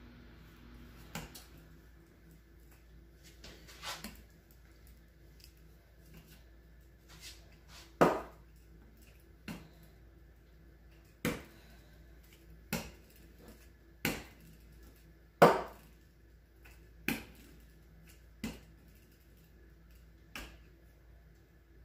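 Wooden rolling pin rolling out butter-laminated Danish dough on a wooden butcher-block counter, with a sharp wooden knock about every second and a half as the pin comes down on the board at each stroke.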